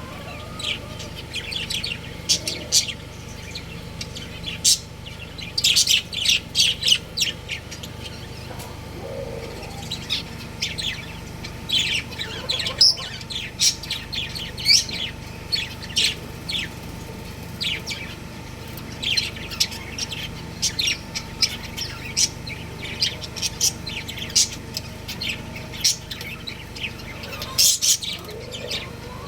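Budgerigars chirping: many short, high chirps in quick, irregular runs, over a steady low hum.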